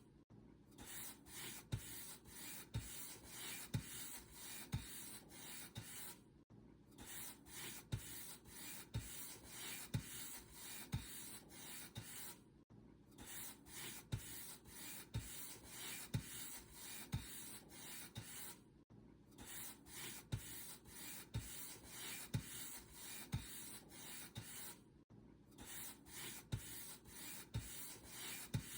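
Paint brush bristles swept over a surface in repeated strokes, a dry scratchy rubbing at about one stroke a second, each stroke starting with a soft tap. The pattern pauses briefly and repeats about every six seconds.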